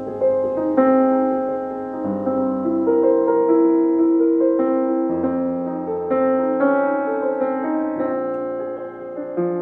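Fazioli F308 concert grand piano played in a slow passage of chords and melody, the notes held and ringing on into one another.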